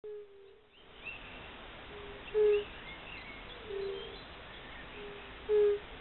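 Fire-bellied toads calling: short, soft hooting 'oop' notes from several toads at slightly different pitches, repeating every second or so, two of them much louder about two and a half and five and a half seconds in. Faint bird chirps sound higher up behind them.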